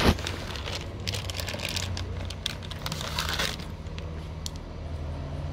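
Plastic bag crinkling and rustling in short irregular bursts as it is handled, over a steady low hum.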